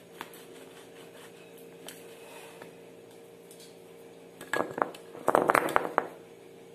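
Metal doughnut cutter clinking and knocking as it is handled and dipped in flour: a few light taps, then a short flurry of clatter about four and a half seconds in. A faint steady hum runs underneath.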